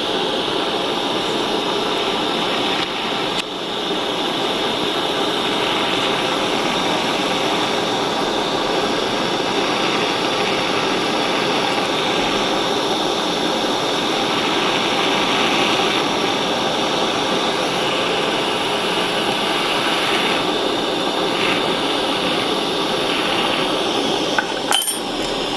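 Small soldering torch flame hissing steadily as it heats a silver-solder joint on a metal eyeglass frame, with a short clink near the end.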